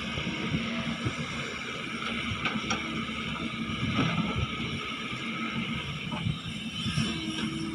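Excavator engine running steadily, with a few short knocks.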